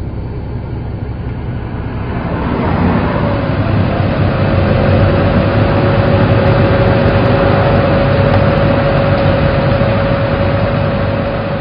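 Vehicle noise of a car driving, then from about three seconds in a utility bucket truck's engine running steadily, louder, with a steady whine over it.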